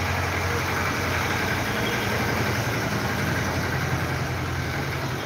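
A machine running steadily: a low hum with a constant rush of noise over it.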